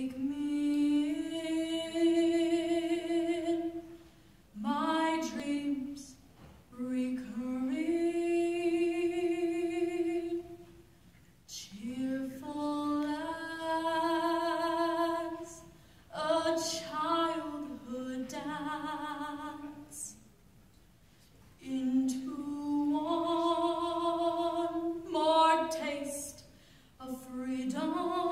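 A woman singing solo, unaccompanied, in slow phrases with short breaks between them, holding notes with vibrato.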